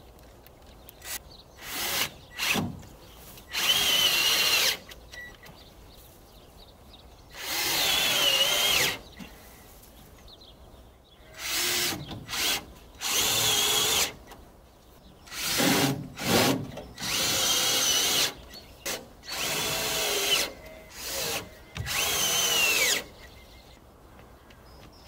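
Cordless drill-driver driving wood screws into timber, in repeated bursts of about a second each with a wavering motor whine and short pauses between screws.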